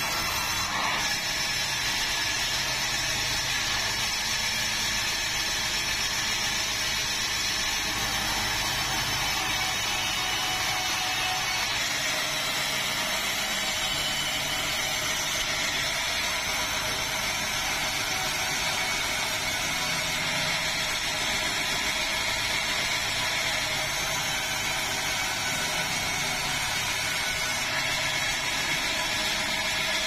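Band sawmill running steadily, its blade sawing through timber boards.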